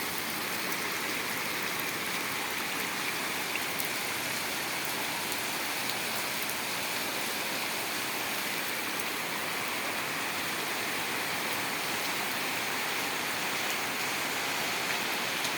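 Heavy tropical rain pouring down steadily, a dense even hiss.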